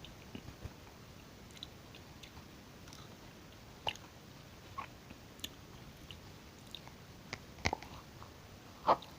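Close-miked chewing and mouth sounds of someone eating strawberries and yoghurt: soft, wet clicks and smacks, scattered irregularly, with louder ones about four seconds in and near the end.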